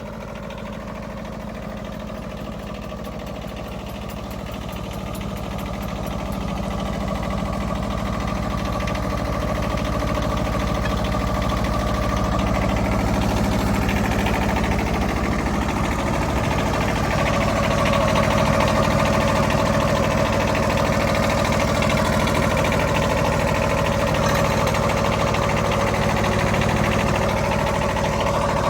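Diesel engine of a Wood-Mizer LT15 portable band sawmill running under load as the band saw blade cuts lengthwise through a log. The sound grows louder over the first ten seconds or so, then holds steady.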